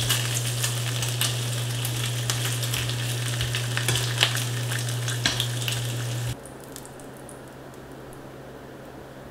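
Bacon strips sizzling and crackling in a nonstick frying pan, with the odd click of metal tongs turning them and a steady low hum underneath. The sizzle cuts off suddenly about six seconds in, leaving only faint room noise.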